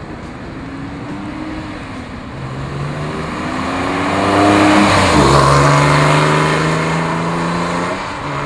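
2006 Porsche 911 Carrera 4's 3.6-litre flat-six engine as the car drives past: the engine note climbs and grows louder as it approaches, drops in pitch as it passes about five seconds in, then eases off as it pulls away.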